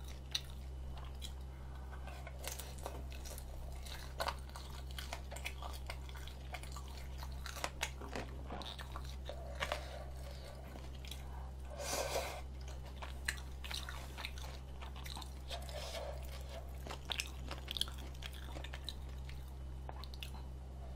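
Close-miked chewing of spicy rabokki and fried dumplings: wet mouth sounds with crunches and sharp clicks scattered throughout, over a steady low electrical hum.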